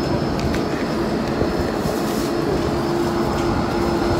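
Lastochka electric train standing at the platform with its doors open, its onboard equipment giving a steady hum with a faint high whine above it.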